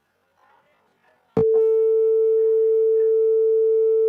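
Simulated buzzer of a PIC16F877A washing-machine program sounding one loud, steady tone that cuts in with a click about a second and a half in and holds without a break. The buzzer is sounding because the machine's door has been opened.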